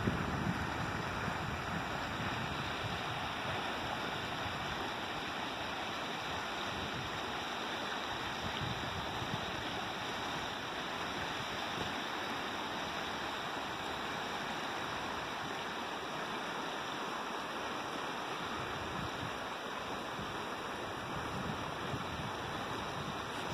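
Shallow mountain creek running over rocks and riffles: a steady rush of water.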